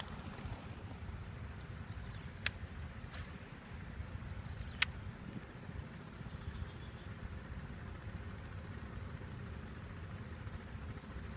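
Steady high-pitched drone of insects over a low rumble, with two sharp clicks about two and a half and five seconds in.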